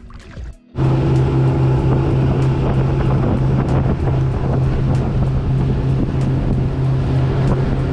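Motorized raft's outboard engine running steadily under way, a loud low drone, with wind buffeting the microphone; it starts abruptly about a second in.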